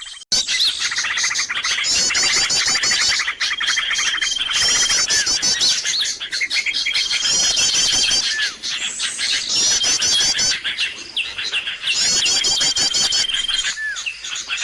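Bird-lure recording of many small birds chirping and trilling busily: fast high trills over a dense chatter, with a thin, held whistle that comes back every few seconds. The sound drops out for a moment just after the start.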